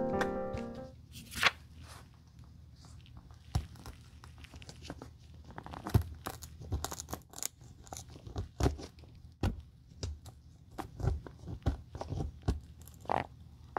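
Utility knife cutting and scraping the chewed covering off a shoe heel, with the covering tearing away from the heel block, in short irregular strokes.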